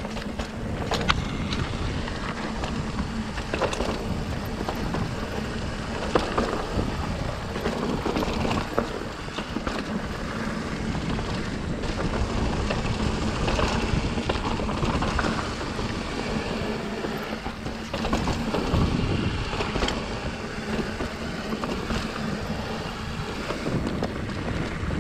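Ibis Ripmo AF mountain bike riding along a dirt singletrack: steady tyre and wind noise on the microphone, with frequent sharp knocks and rattles from the bike over bumps.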